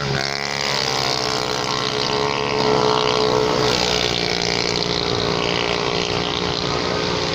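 Racing 130 cc automatic scooter engines passing at full throttle. The engine note drops in pitch as a bike goes by at the start, then holds a high, steady note, loudest about three seconds in.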